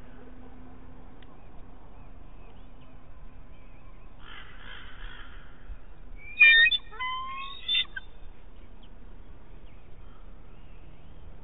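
A bird calling close by: a quick run of loud, high, chattering call notes about six seconds in, lasting under two seconds, after a softer rasping sound a little earlier.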